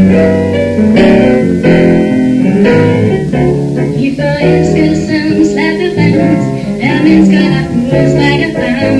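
Live jazz trio music: an upright double bass plucking a moving line under grand piano chords.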